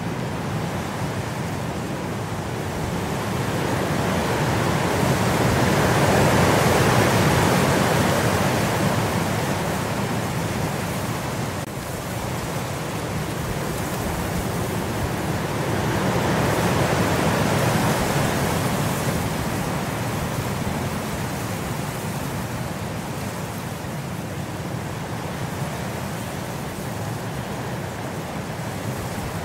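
A steady hiss of rain that swells louder twice, about six and seventeen seconds in, then eases back.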